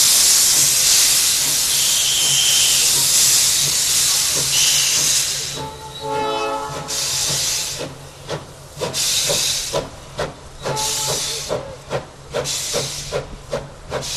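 Steam locomotive 1072 blowing a loud, continuous hiss of steam from its open cylinder drain cocks. About six seconds in there is a short steam-whistle blast. It then pulls away with exhaust chuffs that come faster and faster, each one a burst of steam hiss.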